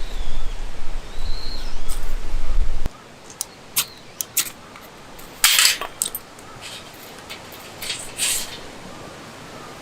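Wind rumbling on the microphone with a couple of short high bird chirps, cut off abruptly about three seconds in. Then scattered sharp clicks and crackles over a quiet background, the loudest about halfway through.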